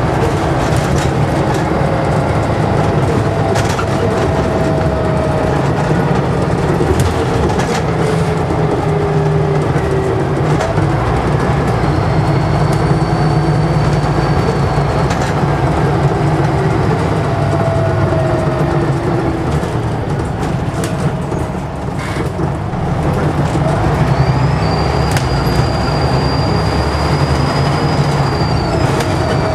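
Scania N94UD double-decker bus running under way, heard on board: a steady engine and drivetrain drone with tones gliding up and down as it pulls. A thin, high turbocharger whistle comes in twice, the second time after a brief easing of the engine about two-thirds through.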